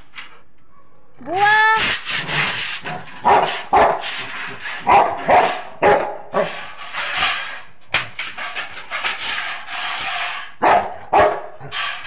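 Rottweiler barking over and over in rough, loud barks. About a second in, a short cry rises in pitch before the barking starts.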